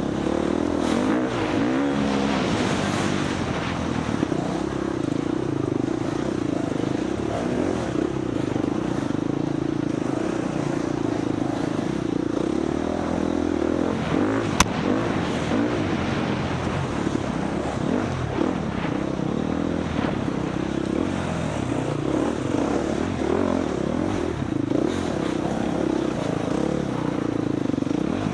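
Husqvarna FX350 dirt bike's single-cylinder four-stroke engine running hard under race riding, its pitch rising and falling as the throttle opens and closes, with one sharp click about halfway through.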